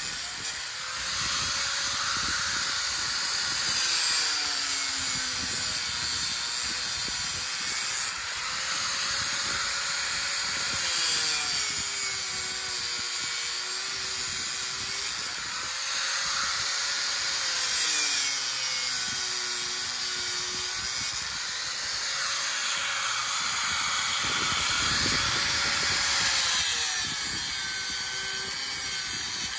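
Corded angle grinder cutting through the steel wires of a hog panel. The motor's whine sags in pitch as the wheel bites and recovers between cuts, with a louder grinding swell about every seven seconds as each wire is cut through.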